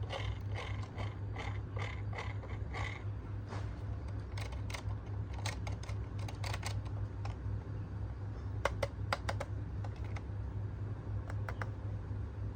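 A run of light, sharp clicks and taps, about two a second at first, then in quick clusters, over a steady low hum.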